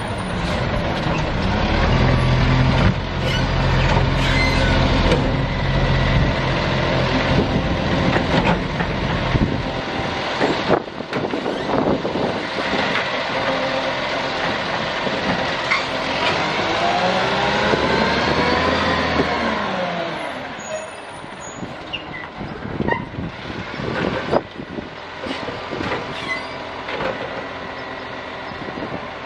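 A side-loading rubbish truck works its hydraulic grab arm on a wheelie bin. The diesel engine runs steadily under the hydraulic load, with knocks and clunks from the bin and arm, a whine that rises and falls, and air-brake hisses. The truck then pulls away and fades about two-thirds of the way through.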